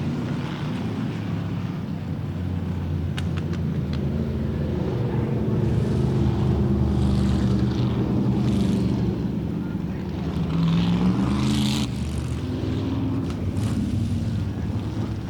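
Several racing stock car engines running hard on a short oval, their pitch swelling and falling as cars pass, with one engine rising sharply about eleven seconds in.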